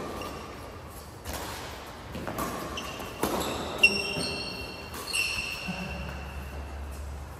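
Badminton rackets striking a shuttlecock in a doubles rally, about five sharp hits roughly a second apart. From about the middle on, court shoes squeak on the hall floor.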